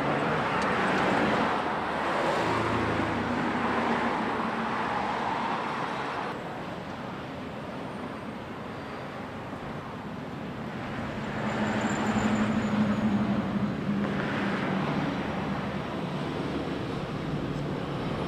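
Road traffic on a street: vehicles passing, the noise swelling over the first few seconds and again about eleven to fifteen seconds in, with a low engine hum during the second pass.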